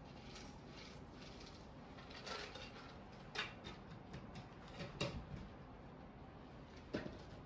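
A few short, soft taps and knocks, four or five spread over a few seconds, from cats stepping and shifting on a tabletop, over a low room hum.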